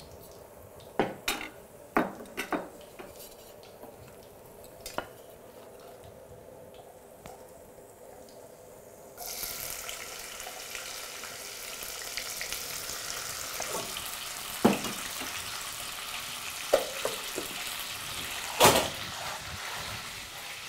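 A few knocks of a wooden spoon against an enamel pot, then about nine seconds in onions drop into hot oil and start sizzling, a steady hiss that carries on with a few more spoon knocks.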